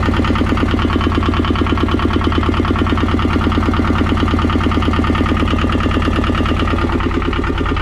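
Yanmar 2QM20 two-cylinder marine diesel running steadily on its new injectors, a loud, even, rapid knock of firing pulses over a low hum.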